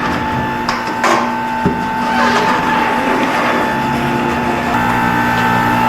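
Tire-changing machine working a car tire onto its rim, giving a steady mechanical hum with hiss and a couple of sharp clicks about a second in.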